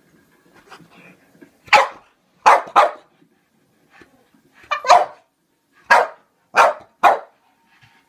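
French bulldog barking in alarm at a toy clown: about eight short barks at uneven gaps, starting about two seconds in.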